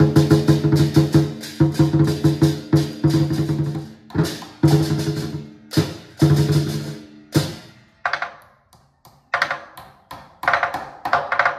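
A large Vietnamese lion dance drum (trống lân, about 60 cm) is beaten in a fast lion dance rhythm, with a pair of hand cymbals clashing along. About two-thirds of the way through, the drum's low tone drops out and only lighter, higher strikes and cymbal hits carry on.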